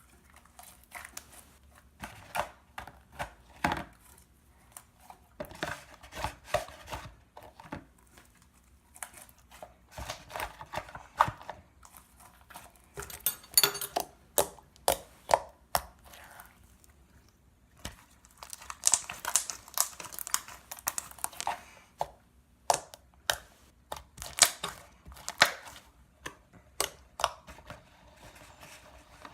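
Hands squishing, folding and stretching slime, making irregular sharp clicks and crackling pops.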